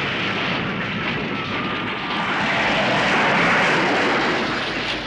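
Steam locomotive derailing and crashing onto its side: a loud, continuous rushing roar of grinding metal, venting steam and debris that swells to its loudest about three and a half seconds in.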